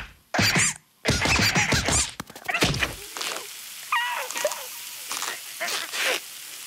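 Cartoon sound effects: a heavy rock slab falling with loud thuds in the first couple of seconds, followed by a cartoon bird's squeaky, strained vocal noises as he struggles beneath it.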